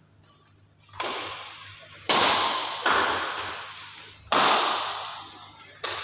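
Badminton rackets striking a shuttlecock in a rally: five sharp smacks, starting about a second in and coming every one to one and a half seconds, each ringing on in the hall's echo.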